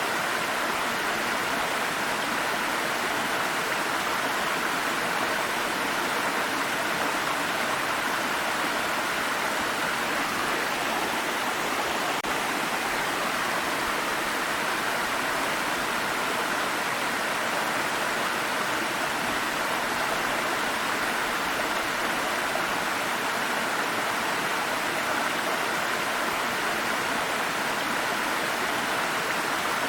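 Small stream of water flowing over rocks, a steady rushing and babbling without change.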